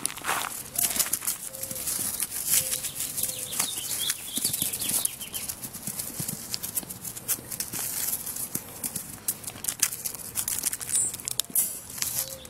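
Irregular rustling, scuffing and small knocks as a puppy scrambles and plays with its toys on dry grass, mixed with handling noise from the phone being moved about close by.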